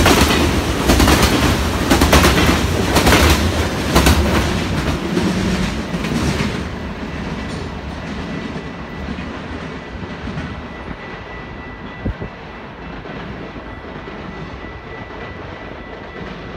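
Canadian Pacific freight train of covered grain hopper cars passing close, its wheels clicking over the rail joints in a loud clickety-clack that fades about six seconds in as the last car rolls away. A faint high steady tone lingers after it.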